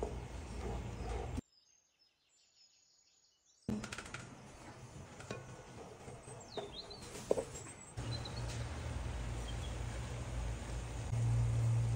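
Melting butter in a pot stirred with a wooden spatula: soft scraping, small clicks and a faint sizzle, broken by about two seconds of near silence a second and a half in. Near the end it grows louder and steadier as shredded knafeh dough fries in the hot butter.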